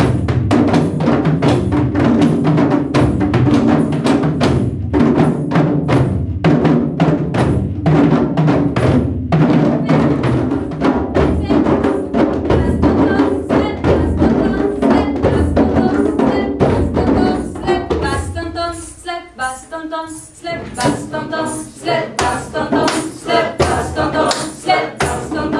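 A group of djembes and dunun bass drums, the dununs struck with a stick, playing a dense steady rhythm together. About eighteen seconds in, the drumming drops away and a voice is heard, then sparser strikes come back under it.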